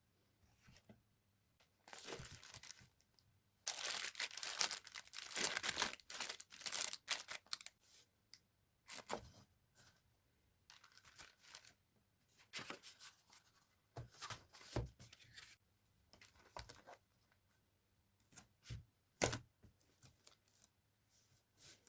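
Close handling noise of crinkly wrapping being torn and crumpled: a dense run of rustling and tearing a few seconds in, then scattered short crackles and clicks.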